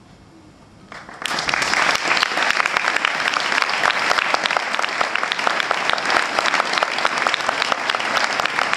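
Audience applause breaking out about a second in, then dense, steady clapping.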